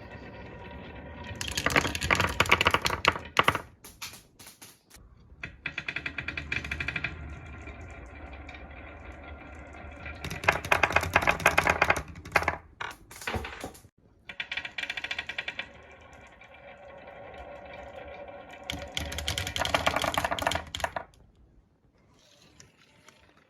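Marbles rolling down a HABA wooden marble run with a steady rolling rumble, three times building to a burst of rapid clattering clicks as they hit the track pieces, then dying away near the end.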